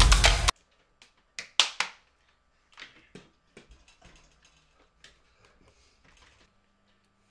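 Drum-led background music that cuts off suddenly about half a second in, followed by three sharp taps in quick succession and a few faint ticks.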